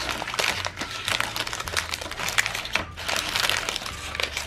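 Plastic candy wrappers and cellophane bags crinkling as they are handled, a continuous run of irregular crackles and rustles.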